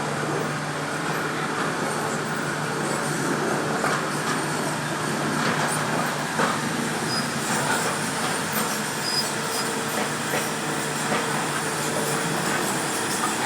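Hitachi hydraulic excavator running: a steady engine drone with scattered metallic clanks and knocks throughout, and a faint steady whine in the second half.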